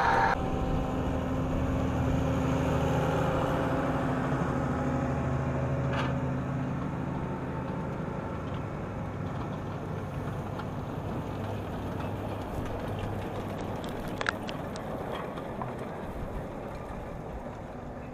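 New Holland T7.190 tractor's six-cylinder diesel engine running steadily under load, pulling a Grimme CS 150 Combi Star clod and stone separator, and fading gradually as the rig moves away. A sharp knock comes about six seconds in, and a louder one near fourteen seconds.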